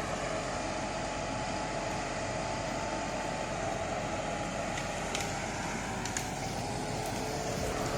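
Heavy machine engine running steadily: an even drone with a faint, slightly wavering hum.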